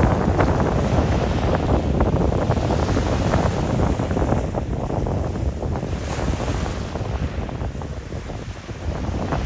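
Wind buffeting the microphone: an uneven, gusting rumble of noise with no steady tone.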